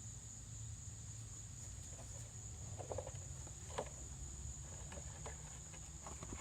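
Steady high-pitched drone of insects, such as crickets or katydids, with a few short rustles and knocks about three and four seconds in from digging through potting soil by hand.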